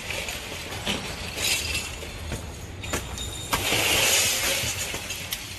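Broken plate glass being knocked out of a smashed storefront window frame with a wooden board: sharp knocks, then shards cracking, tinkling and falling. The loudest crash of falling glass comes about three and a half seconds in.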